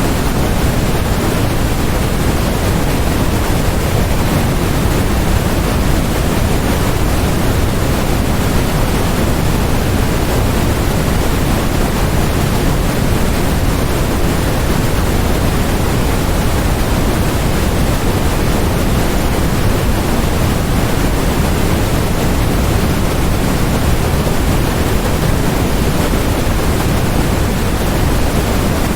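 Steady electronically generated noise: a constant, even hiss with no change, weighted toward the low end.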